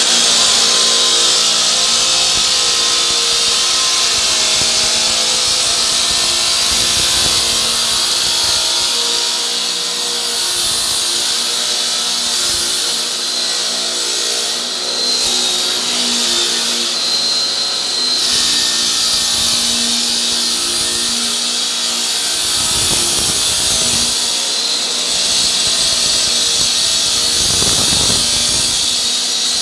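Three-phase electric FS4 walk-behind floor saw cutting 75 mm deep into a water-cooled concrete floor: a steady, loud grinding hiss with a constant whine underneath.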